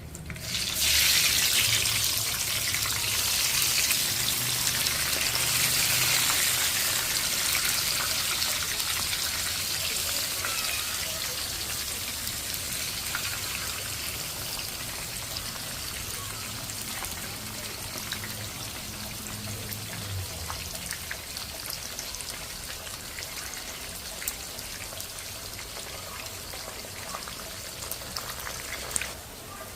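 Food sizzling in a hot pan: a loud frying hiss starts suddenly about a second in and slowly dies down.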